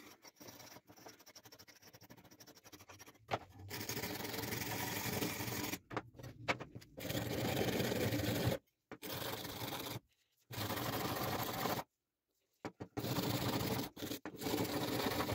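Rusty steel knife blade being scrubbed with a hand tool in fast back-and-forth strokes: light scratching at first, then loud, continuous rasping scraping that stops dead several times.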